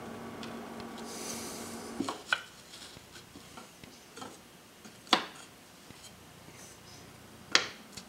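A pen scratching a mark on pine over a steady hum, then wooden clamp pieces set down and knocked against each other on a wooden workbench: several sharp wooden knocks, the loudest about five and seven and a half seconds in.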